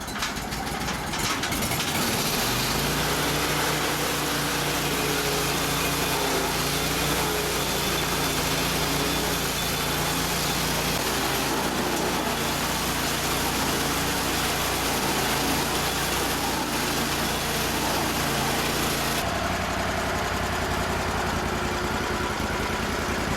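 Red Roo SHP400 stump grinder's petrol engine revving up about two seconds in, then running at high revs as the cutting wheel grinds into a stump, a dense steady racket; the sound shifts near the end.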